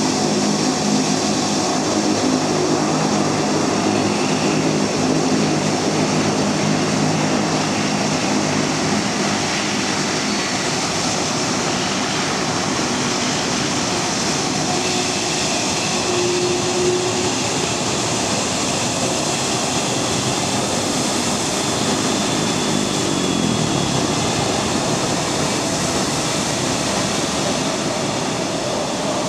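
Boeing 757-200's twin jet engines running at low taxi thrust as the airliner rolls close by and turns away: a steady rush with a whine. A low tone slides down in pitch about 23 seconds in.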